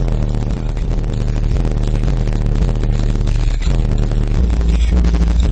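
Two Alpine Type-R 12-inch subwoofers in a sealed box playing a hip-hop track at high volume, heard from outside the car: mostly heavy, deep bass notes.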